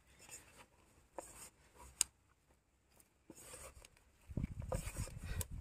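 Hands mixing and kneading rice-bran fishing-bait dough with water: faint scraping and rubbing, a sharp click about two seconds in, and a louder low rustling near the end.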